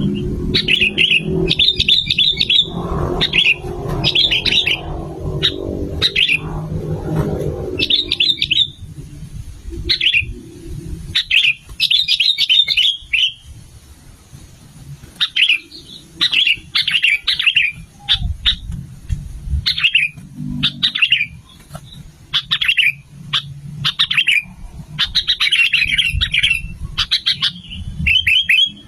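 Sooty-headed bulbul (kutilang) singing a long run of short, bubbly chirping phrases, one after another with brief gaps. A low hum sits underneath for the first several seconds.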